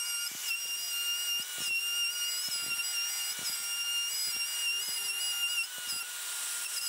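Plunge router running at high speed, routing an 8 mm groove in a plywood panel as it is pushed along a guide rail: a steady high-pitched whine that dips briefly now and then.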